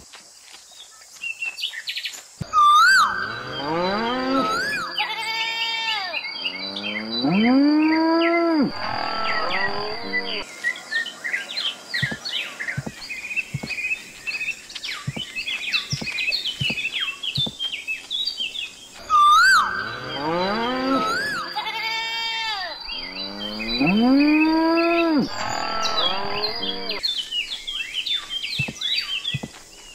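Farmyard sound effect: cattle mooing and other farm-animal calls over birds chirping, with a steady high insect-like tone. The same stretch of calls plays twice, the second time starting about halfway through.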